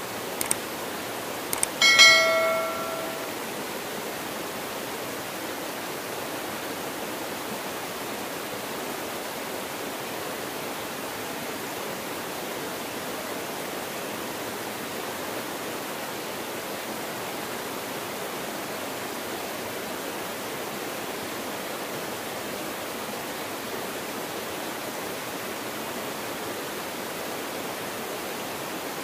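Steady rush of a shallow rocky stream spilling over a small cascade. Just before two seconds in, a couple of clicks and a short bell ding from a subscribe-button animation stand out over the water.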